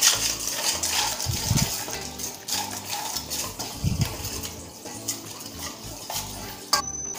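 Hand beater stirring a runny batter of oil, water and gram flour in a stainless steel bowl, clinking and scraping against the metal in quick repeated strokes.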